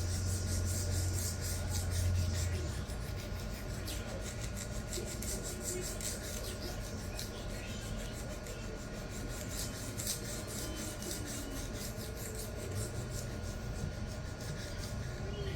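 Steel knife blade being stroked back and forth by hand on a coarse 100-micron resin-bonded diamond sharpening stone, a steady run of uneven scraping strokes as the edge is ground down to remove a low spot.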